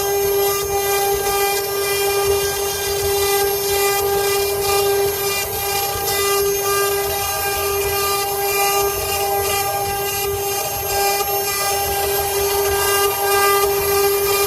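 Multi-head CNC wood-carving router running: a steady high whine from the spindles, over a rough noise of the bits cutting wood.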